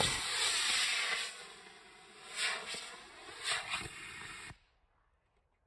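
Model rocket motor firing: a rushing hiss of exhaust, loudest at ignition and fading over a couple of seconds, with two brief louder swells later. It cuts off abruptly about four and a half seconds in.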